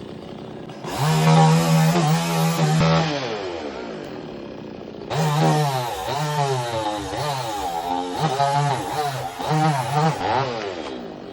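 Two-stroke chainsaw cutting a tree. It is throttled up to a high, steady whine twice, the first time for about two seconds and the second for about five seconds with the pitch dipping and recovering as the chain bites. Each time it winds down to idle.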